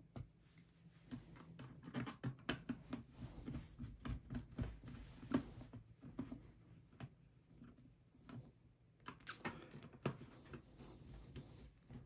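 Phillips screwdriver tightening the screws of a laptop's plastic bottom cover: a faint run of small irregular clicks and taps, a pause of a few seconds, then a second run of clicks.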